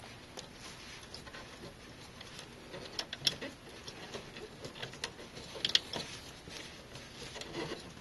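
Hands working cables and a large connector inside a computer case: scattered small plastic clicks and light rustling, with a few sharper clicks about three seconds in and near six seconds.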